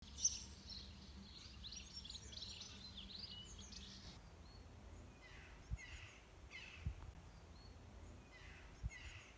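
Birds singing: a busy twittering song for about the first four seconds, then a series of short falling calls repeated in quick pairs. A few faint low thumps are heard in the second half.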